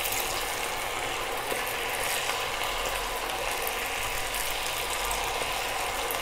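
Maida-and-cornflour-coated cauliflower florets deep-frying in hot oil over a high flame: a steady crackling sizzle.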